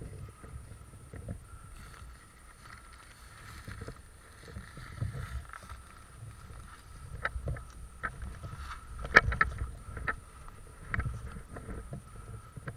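Low rumbling noise on the microphone, with scattered sharp clicks and knocks that come thicker in the second half and one loud knock about nine seconds in.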